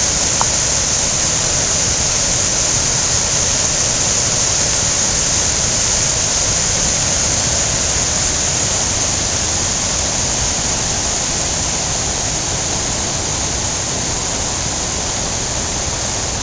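Fountain water pouring over a stone ledge into a pool: a loud, steady rushing hiss.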